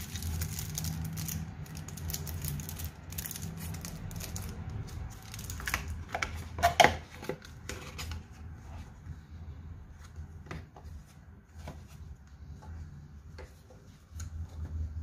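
Cardboard box of flameless tea-light candles being handled and closed: scattered clicks, rustles and scrapes, with one louder knock about seven seconds in.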